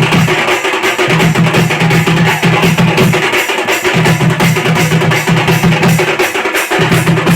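Loud music driven by fast, even drumming, with a low bass line that comes and goes in short phrases.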